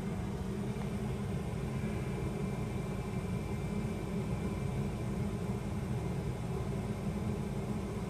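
Goodman gas furnace's draft inducer motor running with a steady hum after a power reset, the furnace in its start-up cycle with the burners not lighting.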